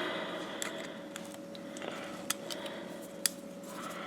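Small metal clicks and scrapes from a flat screwdriver prying at the retaining clip of a 1958 Cadillac door lock cylinder, a few sharp ticks scattered through.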